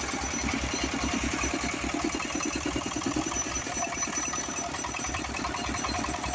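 Motorized rice thresher running steadily, its engine giving a fast, even low beat.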